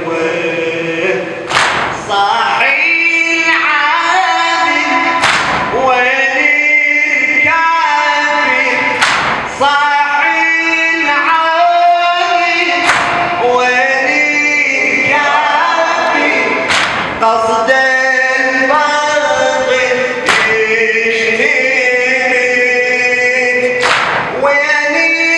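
A group of men chanting a Shia Husseini mourning lament (latmiya) in unison, unaccompanied, with a sharp percussive strike about every four seconds.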